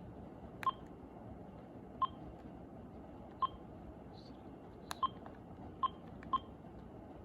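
Cordless phone handset keypad beeping as its buttons are pressed to step through menu settings: about seven short, single-pitched beeps at irregular intervals, each with a small click.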